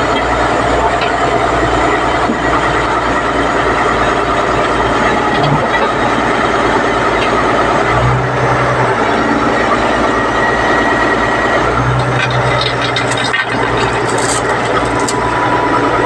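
Caterpillar D8T bulldozer's heavy diesel engine running loud and steady, with a constant metallic whine above its low rumble.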